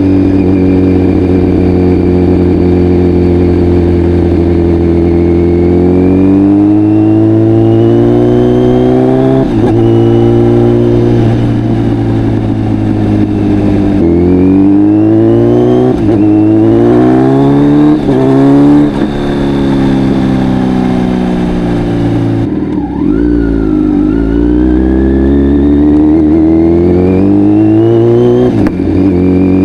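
Kawasaki Z900's inline-four engine through a full Akrapovic exhaust, holding a steady pace and then accelerating through the gears. The pitch climbs and drops sharply at each of several quick upshifts.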